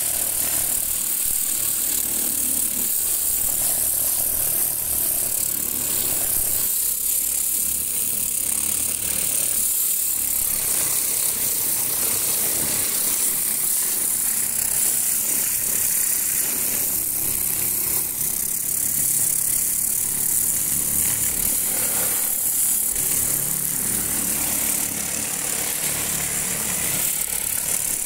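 Pressure washer running steadily: the drone of its motor and pump under the continuous hiss of the high-pressure water jet spraying onto a tractor's engine and metal bodywork.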